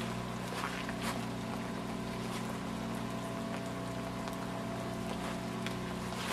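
A steady low mechanical hum made of several held tones, like a motor running, with a couple of faint crunching steps near the start.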